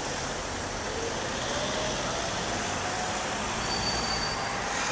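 Road traffic noise: a steady rumble of passing cars, with one engine note slowly rising in pitch over a few seconds.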